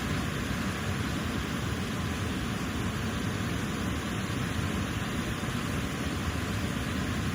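Elk River's waterfall and rushing current: a steady, unbroken sound of falling water, deepest at the low end.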